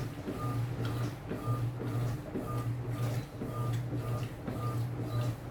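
Electrolux Essential Care 8.5 kg top-loading washing machine agitating the wash. The motor hums in short strokes about once a second, with a brief high whine between strokes.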